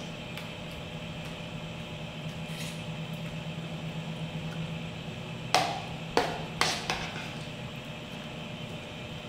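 A spoon clinks against a plate four times in quick succession a little past the middle, over a steady low hum.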